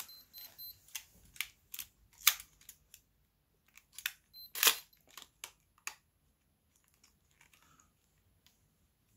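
Clicks and small knocks from a Minolta X-700 35mm film camera being handled while film is threaded onto its take-up spool. About a dozen sharp, irregular clicks come over the first six seconds, the loudest about two and a half and four and a half seconds in, then only faint handling noise.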